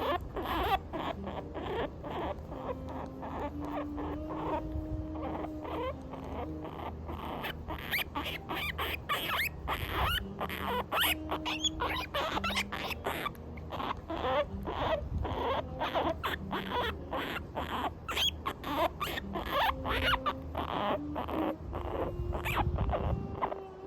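Guinea pig squeaking in a rapid run of short squeaks that goes on and on, over soft background music with held notes.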